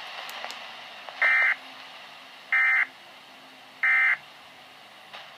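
Emergency Alert System end-of-message data signal: three short bursts of the digital warbling data tone, about a second and a quarter apart. It marks the end of the severe thunderstorm warning broadcast.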